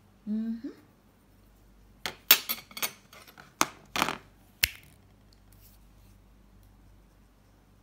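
A metal fork clinking and scraping against a ceramic plate: a quick run of sharp clicks about two seconds in, ending with a last clink near the middle. A brief vocal sound comes just before.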